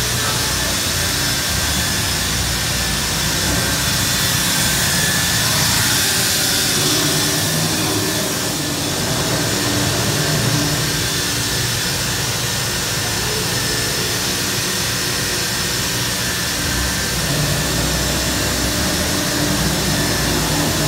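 Holz-Her Cosmec Conquest 510 CNC router running: a steady machine hum with a high, even whine over it.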